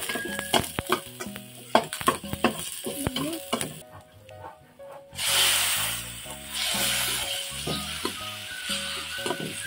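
A metal spoon clicks and scrapes against a stainless steel pan as onion and garlic fry in oil. About five seconds in, raw chicken pieces go into the hot pan and a loud sizzle starts suddenly, then carries on more quietly as the chicken is stirred.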